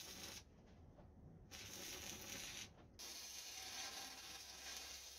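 Electric arc welding: the arc crackles and sizzles, stopping for about a second shortly after the start and again briefly near 3 s as the arc breaks between runs.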